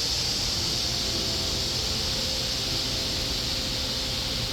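Steady, unbroken chorus of summer insects, a high continuous hiss, over a low rumble.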